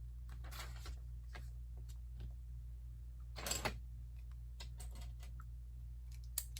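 Plastic Lego pieces being handled: scattered light clicks, a brief rustle a little past halfway, and a sharper click near the end, over a steady low hum.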